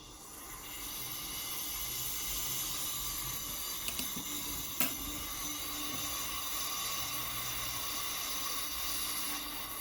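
Steady hiss of gas escaping from a refrigerator's suction pipe during a leak test. It swells over the first second and then holds, with two small clicks about four and five seconds in.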